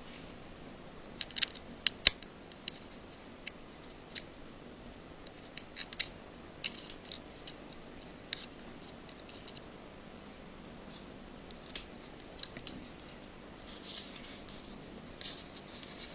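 Small, sharp metal clicks and ticks of a precision screwdriver and tiny screws being fitted to the metal shield covers inside an iPhone 5, coming in scattered clusters, with a short scratchy rasp near the end.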